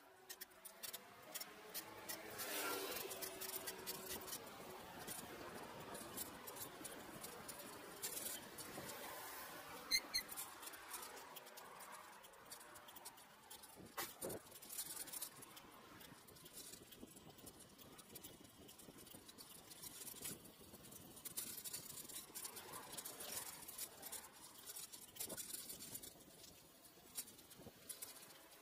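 Faint crackling hiss with scattered small clicks and rattles from a bicycle riding over city streets, with a sharper click about ten seconds in.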